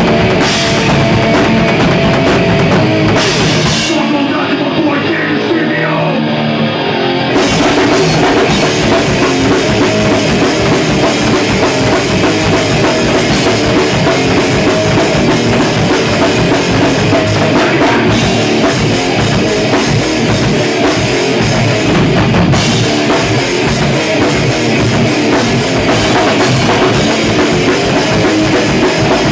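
Loud live heavy rock band playing with distorted electric guitar, bass guitar and drum kit. About four seconds in, the drums and bass drop out for roughly three seconds, leaving the guitar alone, before the full band crashes back in.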